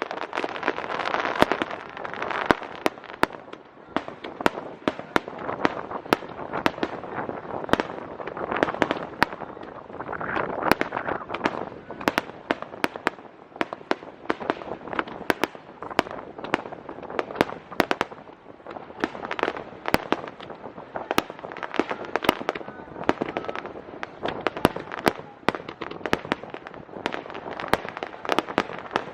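Aerial fireworks shells bursting in quick, irregular succession: a dense run of sharp bangs and pops over a continuous rushing noise.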